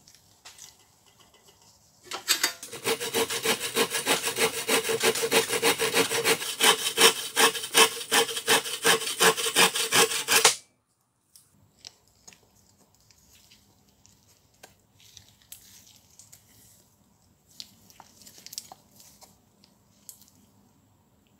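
Hand saw cutting through a wooden block, steady back-and-forth strokes about two a second for roughly eight seconds, then stopping abruptly. Afterwards only faint knocks and scrapes of the wood being handled.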